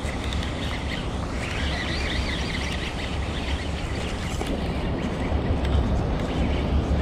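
Steady low wind rumble on the microphone out on open water, with a stretch of high chirping from about one to three and a half seconds in.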